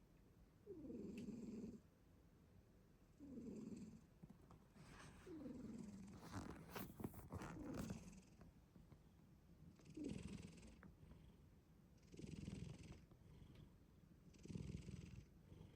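Domestic cat snoring in deep sleep: a soft snore on each breath, about every two seconds, each falling in pitch, with a few faint clicks in the middle.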